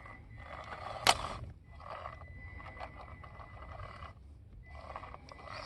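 Small-scale RC rock crawler's electric motor and gears whirring in short throttle bursts as it works over rock, with one sharp knock about a second in.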